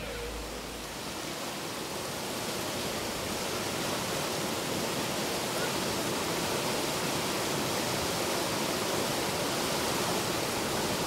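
Whitewater river rapids rushing, a steady even wash of churning water that grows slightly louder over the seconds.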